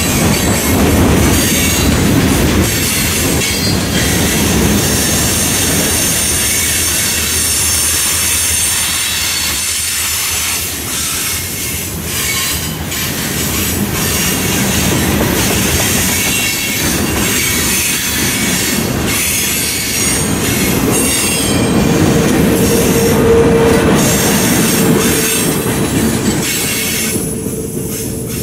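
Freight cars rolling past on a curve: a steady rumble of steel wheels on rail, with clicking over the rail joints and high-pitched wheel squeal from the curve. For the last several seconds one lower, steady squeal tone rings out, then the sound falls away as the last car passes.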